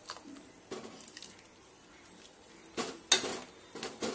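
A metal ladle stirring bottle gourd slices in a thick yogurt gravy in a metal pot: scattered scrapes and clinks of the ladle against the pot. A louder cluster of knocks comes about three seconds in, and a few more near the end.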